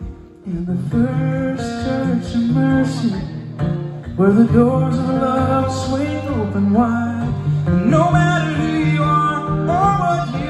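Live gospel song: a male singer with two strummed acoustic guitars, the music starting about half a second in after a brief lull.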